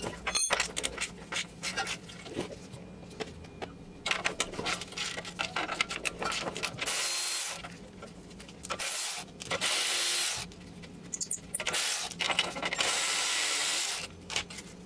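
Cordless ratchet undoing the 13 mm nuts on the exhaust flex-pipe-to-catalytic-converter flange. The first half is scattered clicks and metal knocks as the tool is fitted and worked. Then come about five short runs of the motor, each around a second, starting and stopping sharply.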